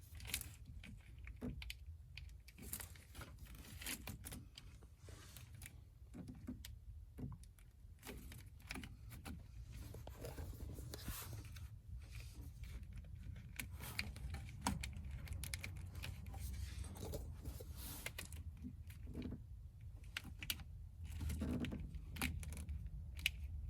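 Irregular small clicks, taps and rattles of hands and parts being handled in a car's engine bay, over a low steady hum.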